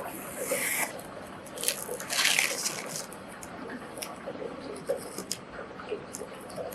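Scissors cutting printed etching paper, with the paper rustling: two longer rustling swishes, about half a second and two seconds in, amid small snips and clicks.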